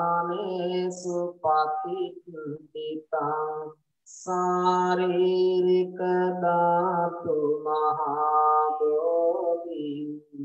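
A Buddhist monk chanting devotional verses solo in a melodic, sung style, with long held, gliding notes and a short break for breath about four seconds in.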